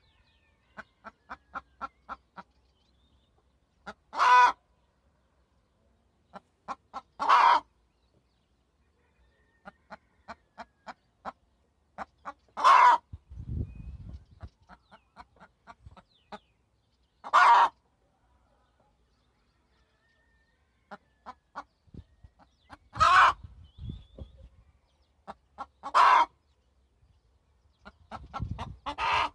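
Domestic hen clucking: runs of short, quick clucks, each ending in a loud, drawn-out squawk, repeated every three to five seconds.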